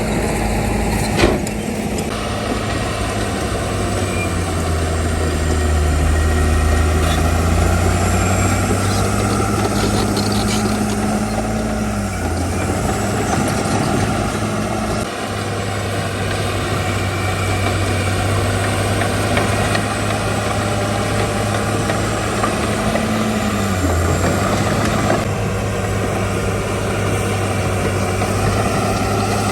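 Heavy diesel engine of construction machinery running steadily. Its pitch sags briefly and recovers about 12 seconds in and again about 24 seconds in. One sharp clank comes about a second in.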